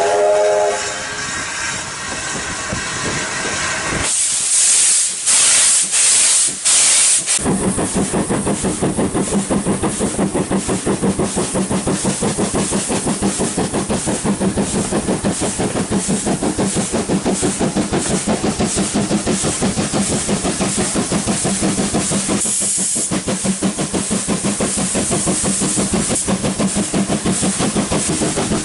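Steam locomotive hauling a train, heard from an open coach window. A short whistle sounds at the start, then several loud hissing bursts of steam a few seconds in, then the locomotive's exhaust beats settle into a rapid, even rhythm over a steady rumble, with another brief hiss near the end.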